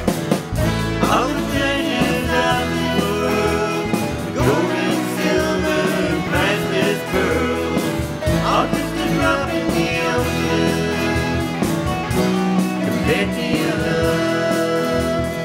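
A pop-rock song played by a band, with guitars and drums under a singing voice.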